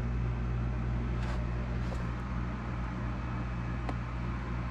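Steady low mechanical hum of two dehumidifiers running in a damp basement, with a few faint ticks of water dripping.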